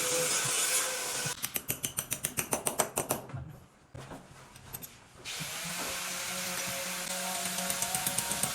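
A power tool running with a steady motor hum. About a second and a half in it gives a run of rapid clicks, roughly ten a second, then falls quiet for a couple of seconds before the steady running starts again.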